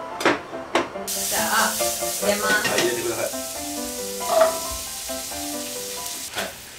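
Meat sizzling in a hot frying pan as it is stirred with chopsticks. The sizzle comes in suddenly about a second in, after a couple of sharp clicks. Background music plays under it.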